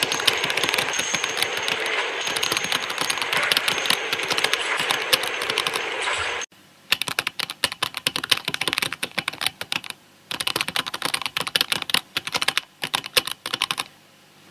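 Typing on a computer keyboard: a dense, continuous stretch of keystrokes that stops suddenly about six seconds in, then lighter runs of keystrokes broken by short pauses.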